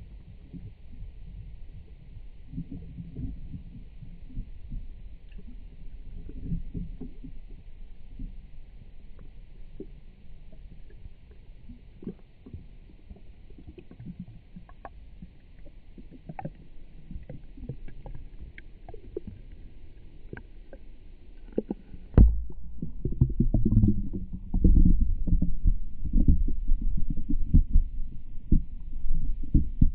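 Muffled water sound picked up by an action camera submerged in a sinking model boat: low rumbling with scattered small knocks and clicks. About 22 seconds in, a faint higher hiss cuts off suddenly and the low rumbling grows much louder.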